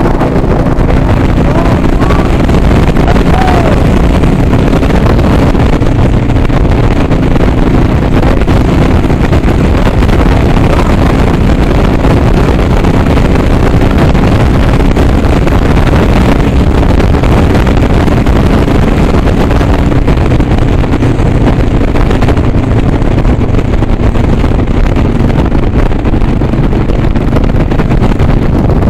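Harley-Davidson Sportster Iron 883's air-cooled V-twin engine running steadily at cruising speed, with wind rushing over the microphone.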